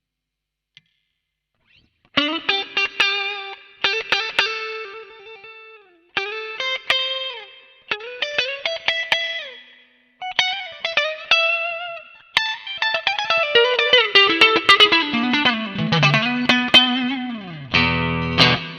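Electric guitar, a Fender Stratocaster played through the MOOER GE200 multi-effects unit's "SWEETY" preset, playing lead phrases of single notes with bends, separated by short pauses. Playing starts about two seconds in, and the last phrase ends on a fuller chord-like hit.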